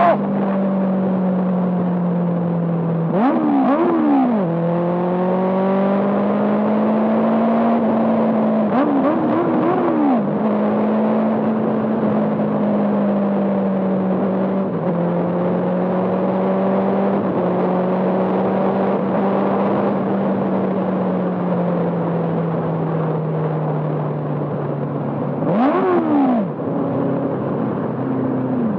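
Benelli TNT 600i's inline-four engine running through an IXIL full-system exhaust while riding. Its note rises and falls with the throttle, and three short, sharp revs stand out along the way.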